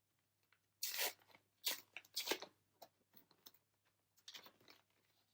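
A Star Wars Unlimited booster pack wrapper being torn open: three sharp rips about a second in, followed by lighter crinkling and handling of the wrapper and cards.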